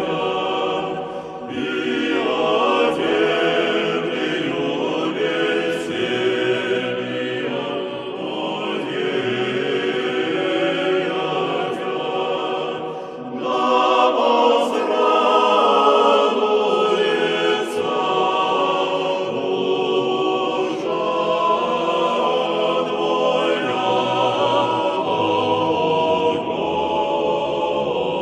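Music with choral singing, the voices going on in phrases and pausing briefly twice.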